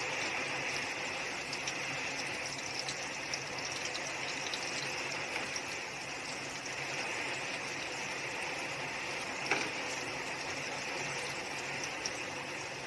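Steady rain falling, an even hiss with faint scattered ticks and one sharper click about three quarters of the way through.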